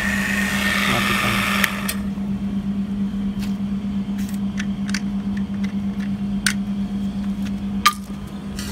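Refrigeration vacuum pump running at deep vacuum, then switched off about two seconds in, its hiss cutting out suddenly. A low steady hum carries on, with a few sharp clicks afterwards.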